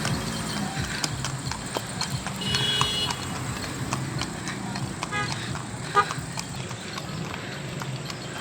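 A mare's hooves clip-clopping in an uneven rhythm as she is ridden, with a sharper knock about six seconds in.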